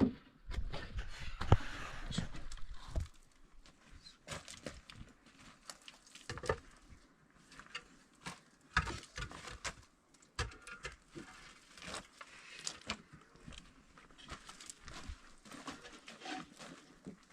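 Irregular knocks and taps of hand building work, with a cluster of heavier thumps in the first three seconds, then lighter scattered clicks and scrapes.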